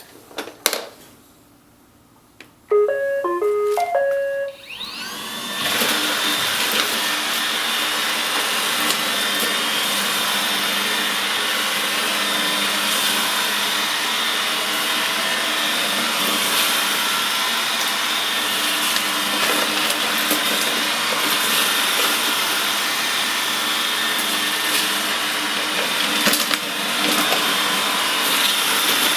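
iRobot Roomba 880 robot vacuum being started: a click, a short tune of stepped beeps about three seconds in, then its motors spin up with a rising whine and it runs steadily, vacuuming in spot-clean mode.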